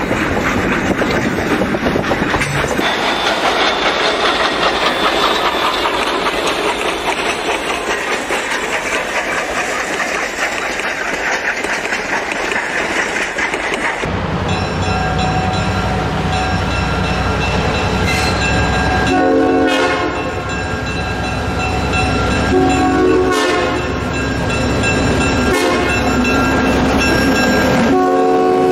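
Durango & Silverton narrow-gauge steam train's coaches rolling past, wheels clacking over the rail joints. Halfway through the sound changes to a deeper rumble of the train, with a few short whistle blasts in the second half.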